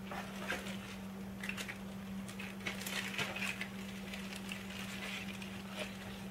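A clear zip-lock plastic bag and the paper cards inside it rustling and crinkling as they are handled, in soft, scattered crackles. A steady low hum runs underneath.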